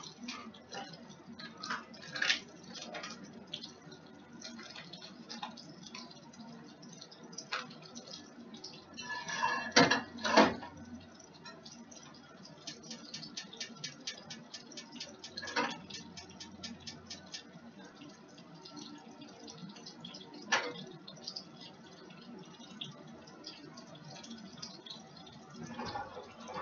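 Kitchen handling noises: scattered clinks and knocks of utensils and cookware, with a louder clatter about ten seconds in and a run of quick, even ticks in the middle.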